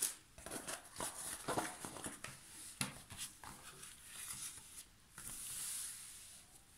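Printed packaging rustling and crackling as hands handle it and smooth it flat on a table: irregular crackles, then a longer sliding rustle near the end as both hands slide across it.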